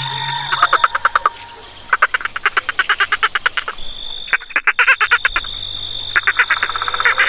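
Frogs croaking in rapid pulsed trains of about ten pulses a second, in four bouts of roughly a second each, over a steady high-pitched whine.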